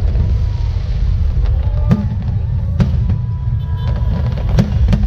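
Aerial fireworks bursting overhead: about four sharp bangs, spread out over a few seconds, over a steady heavy low rumble.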